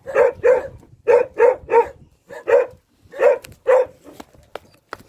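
Dogs barking repeatedly: about nine short barks in quick, irregular groups, with a few faint clicks near the end.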